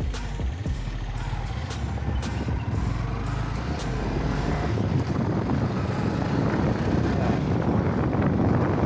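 Motorcycle running on the road, its engine rumble mixed with road and wind noise, growing a little louder about halfway through.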